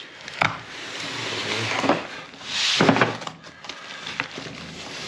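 Cardboard box being handled and opened: cardboard sliding and scraping with rustling swells, and a couple of light knocks about half a second in and near the three-second mark.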